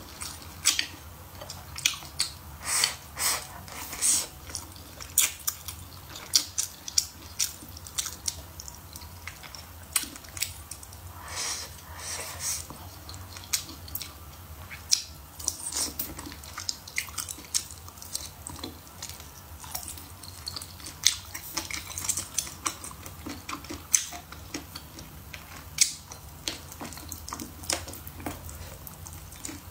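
Close-miked chewing of soft braised pork trotter: irregular wet smacks and sticky clicks of the mouth.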